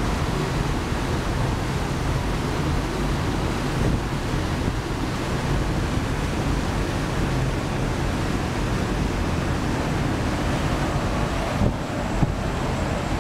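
Wind buffeting the microphone on a moving ferry deck, with the steady rush of water from the wake and spray. Near the end a faint high whine comes in as a Boeing 929 Jetfoil passes close on its foils.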